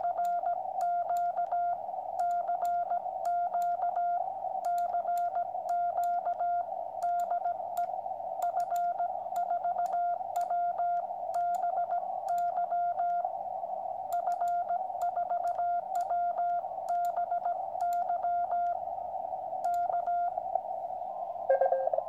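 QRP Labs QCX transceiver's Morse sidetone, a steady mid-pitched beep keyed by hand on a straight key, sending a CQ call with the callsign F4WBY over receiver hiss, with faint clicks at the keyings. Near the end a lower-pitched Morse signal takes over: a station answering the call.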